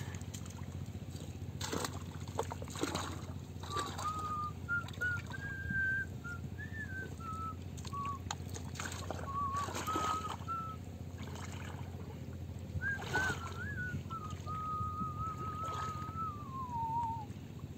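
A person whistling a wandering tune in short phrases, ending on a falling note. Soft splashes from men wading and from a cast net being thrown and hauled in shallow water.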